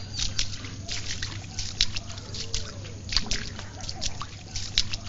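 Shallow floodwater splashing and sloshing in irregular sharp splashes, over a low steady hum.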